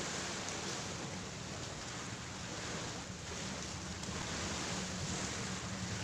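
Ocean surf breaking on a beach, a steady rushing noise, with wind rumbling on the microphone.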